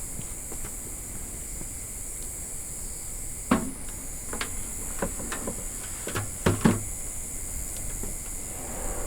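A series of knocks and clunks, like gear being handled, the loudest about three and a half seconds in and a close pair near six and a half seconds, over a low wind rumble on the microphone and a steady high hiss.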